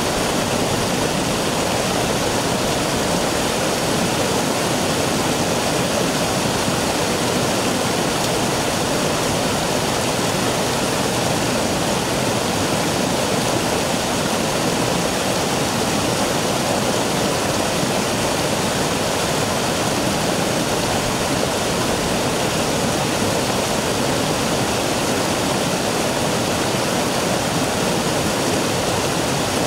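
Small rocky stream cascading over bedrock, a steady continuous rush of water.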